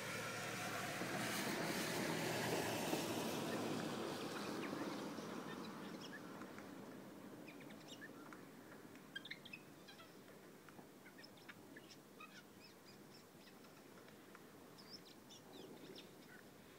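Eurasian jay giving short, quiet high-pitched calls and clicks, scattered irregularly through the second half. Over the first few seconds a broad rush of background noise swells and fades.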